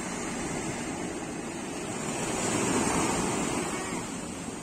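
Ocean surf breaking and washing up a sandy beach. The rush of the water swells to a peak about halfway through, then eases off.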